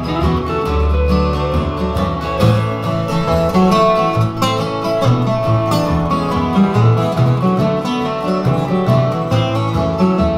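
Instrumental break of a country song played live by a small string band: an upright bass plucks a moving bass line under strummed acoustic guitars and an electric guitar.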